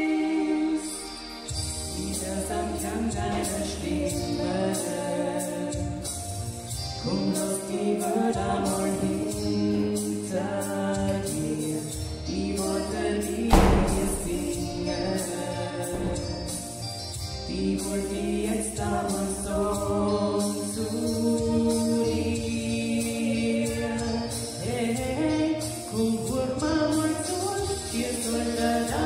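Two women singing a pop song together into handheld microphones over an amplified backing track with bass and a steady beat. A single loud thump about halfway through.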